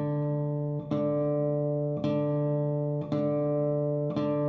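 Classical guitar's D string plucked repeatedly with rest strokes (apoyando), the same low note struck about once a second, each pluck ringing on until the next.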